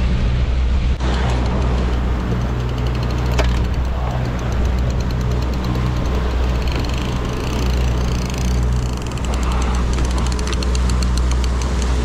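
Boat engine running steadily at trolling speed, a constant low hum.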